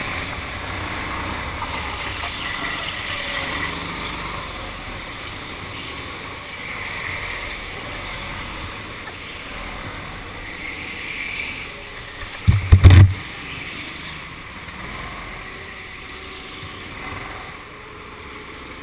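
Go-kart running around a track, heard as a steady rushing rumble on its onboard camera, easing off near the end as the kart slows. About twelve and a half seconds in there is a sudden, very loud cluster of low thumps.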